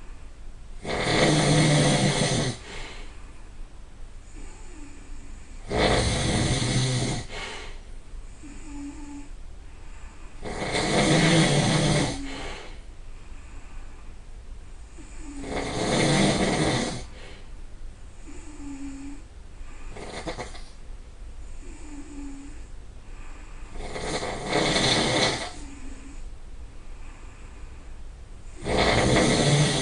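A person snoring, six loud snores of a second or so each, coming about every four to five seconds, with one longer pause past the middle.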